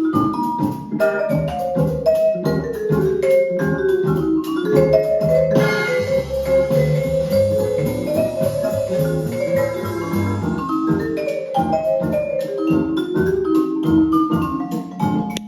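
Music played back from a record on a turntable with a Dynavector DV XX2 MkII cartridge: quick runs of tuned mallet-percussion notes over a lower accompaniment, fuller and denser for a few seconds in the middle.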